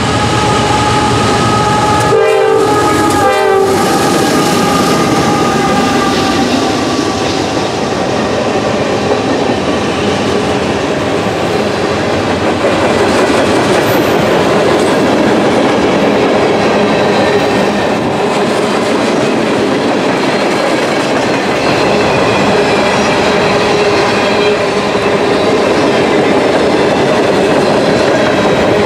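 CSX freight train passing close by. The locomotive's horn sounds for the first several seconds, with two short breaks a couple of seconds in, then fades as the locomotive goes by. After that the freight cars roll past with their wheels running steadily on the rails.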